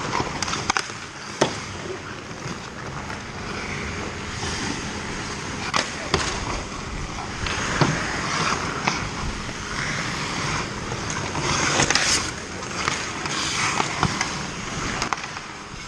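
Ice hockey play: skate blades scraping and carving on the ice, with sharp clacks of sticks striking the puck and ice scattered throughout.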